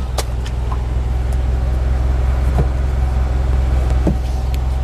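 Suzuki off-road 4x4's engine idling steadily with a low, even rumble, with a few light clicks and knocks over it.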